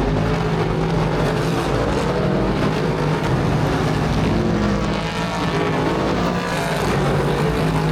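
Speedway race car engines running steadily.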